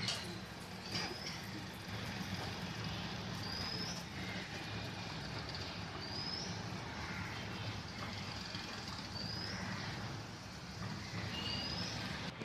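Pot of water with green peas boiling hard on a gas burner: a steady rumble and hiss. A bird's short rising whistle repeats about every two to three seconds.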